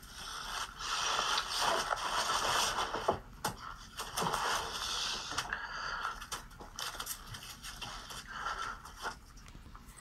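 Rustling and scraping from hands handling the LEGO set's packaging, in a run of short noisy swells with a few sharp clicks.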